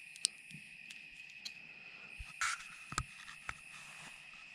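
Crickets trilling steadily in one high, unbroken tone. A few light clicks and a brief rustle of handling come about two and a half seconds in.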